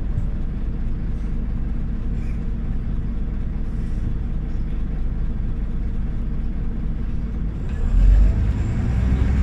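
Scania OmniLink CL94UA city bus under way: a steady low rumble of engine and road noise, with a heavier low thud about eight seconds in.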